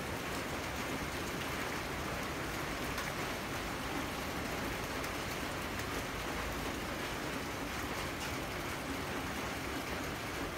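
Heavy rain falling steadily: an even, continuous hiss of downpour.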